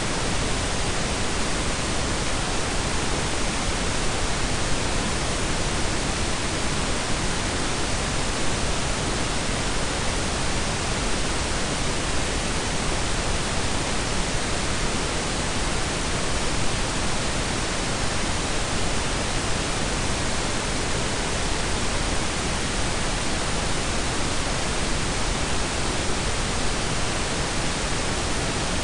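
Steady blend of pink and brown noise: an even, unchanging hiss with a deep low rumble, without any tone or rhythm.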